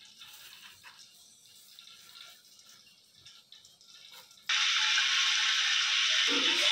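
Faint background music with a few light knife cuts through radish. About four and a half seconds in, a loud, steady sizzling hiss starts suddenly: hot oil in a cooking pot.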